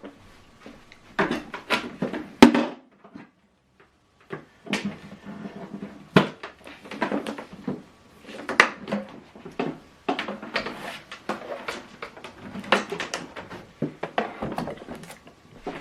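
Handling noise: an irregular string of light clicks, knocks and rustles as an HDMI cable is handled and brought round to the back of a TV, with a brief pause about three seconds in.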